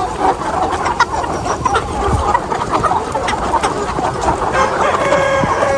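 Many chickens clucking and calling at once, a continuous dense chorus of overlapping short calls with a few longer held calls, mixed with scattered clicks and taps.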